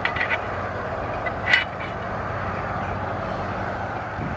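Portable gas stove burner hissing steadily under a lidded metal mess tin of soup that is being brought back to the boil. Small metal clicks as the lid goes on at the start, and a sharper metal clink about a second and a half in.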